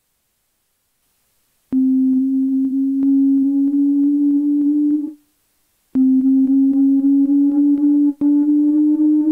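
Simple Microtonal Sampler plugin playing back an A-440 test-tone sample as sustained single notes. One note starts about two seconds in and holds for roughly three seconds. After a short break a second note comes in and steps up a little in pitch, as the sample is played in the microtonal tuning. A fast ticking of small clicks runs through the tone.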